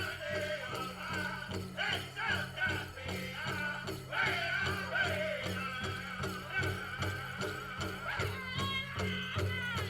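Powwow drum group singing in high voices over a steady unison beat on a large bass drum.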